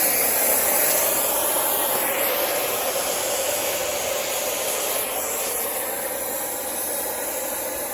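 A torch flame hissing steadily while a copper refrigerant line joint is soldered, with nitrogen flowing through the line.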